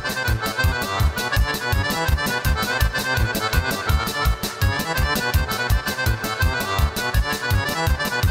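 Fast folk dance music from southern Serbia, with a quick, steady beat.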